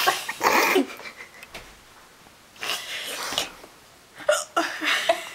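A person hiccuping: a sudden sharp hiccup right at the start, then several short breathy sounds.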